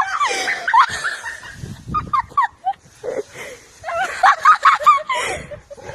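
Small dog growling in frustration as she tears at a bush, with leaves and twigs rustling between the short growls.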